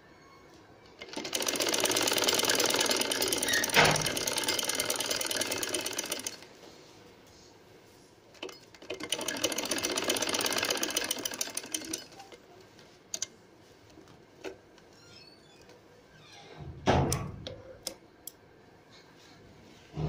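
Sewing machine stitching piping onto fabric in two runs, about five seconds and then about three seconds, with quick even needle strokes and a sharp click partway through the first run. A few light clicks follow, then a thump near the end.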